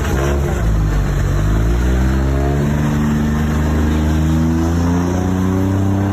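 Truck engine running loud under acceleration, rough and low at first, then climbing steadily in pitch over several seconds.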